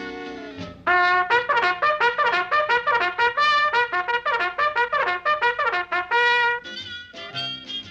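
Cartoon score music led by a trumpet: after a second of quieter held notes, the trumpet plays a loud, fast run of short staccato notes that ends about six and a half seconds in, and the music carries on quieter and sparser.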